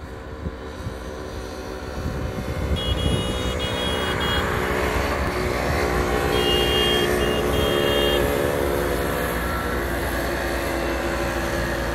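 A convoy of Piaggio Ape three-wheelers driving past, the note of their small engines growing louder as they approach. A horn beeps in short toots about three seconds in and again about six seconds in.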